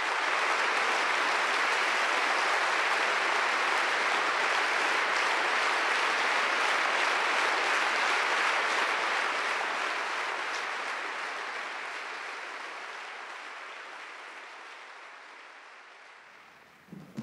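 Audience applauding steadily, the applause then fading out gradually over the second half.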